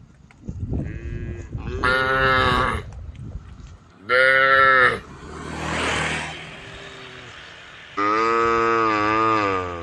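Cattle mooing: a faint call, then three loud moos, the last one long and wavering in pitch. A rushing swell of noise rises and fades between the second and third loud moos.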